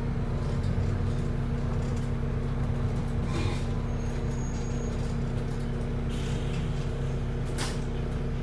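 Wright New Routemaster (NB4L) hybrid bus running on its diesel engine alone, heard from inside the cabin as a steady hum, with two brief clicks about three and a half and seven and a half seconds in. The uploader wonders whether the diesel-only running is a battery fault.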